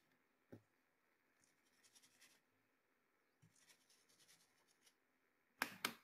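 Faint scrubbing of a small brush over a circuit board, coming and going, with a sharp knock about half a second in and a short cluster of knocks near the end.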